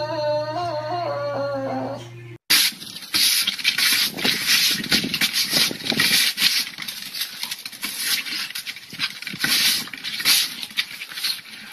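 A dog whining in a wavering, bending pitch for about two seconds. Then, after a brief break, a busy scratchy scraping and scuffling of push-broom bristles on wooden deck boards as a small terrier bites and tugs at the broom.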